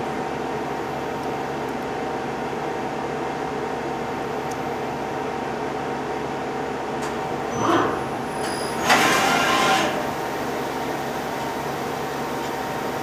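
1998 Hitachi Seiki HT23J CNC lathe running with a steady hum holding several tones. Past the middle comes a short whirr, then a louder burst with a sharp start lasting about a second, as the program starts and the tool turret moves in toward the chuck.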